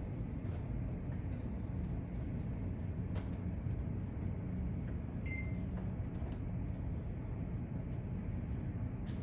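Steady low rumble of city street or construction-site noise, with a single short high beep about five seconds in and a couple of sharp knocks.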